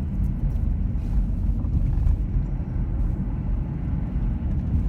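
Steady low rumble of a car driving, heard from inside the cabin: engine and tyre noise on snow-covered roads.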